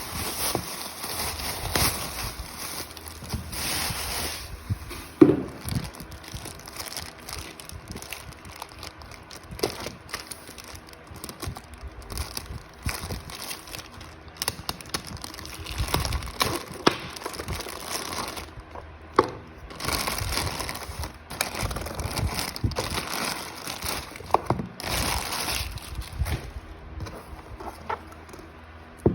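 Plastic packaging being handled and opened by hand: irregular crinkling and rustling, with scattered sharp clicks and taps, one louder snap about five seconds in.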